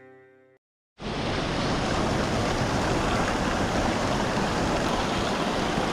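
Background music fades out, then about a second in a steady, even rushing of fast-flowing water starts, a stream or river running without pause.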